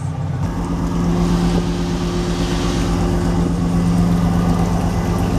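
A boat engine idling: a steady low drone with a fast even pulse, which comes up about half a second in.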